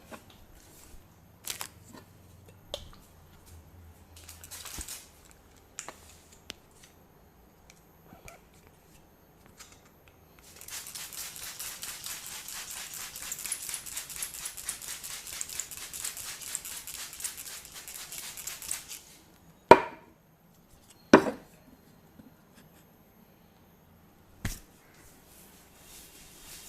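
Barber's scissors snipping rapidly and steadily for about eight seconds, with scattered small clicks before it. Three loud, sharp hits follow, the first two loudest.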